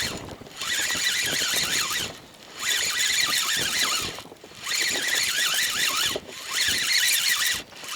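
A spinning reel being cranked in four bursts, each about a second and a half long, with short pauses between. Its gears give a high, wavering whine. This is a stepped jig retrieve, the lure hopping along the bottom.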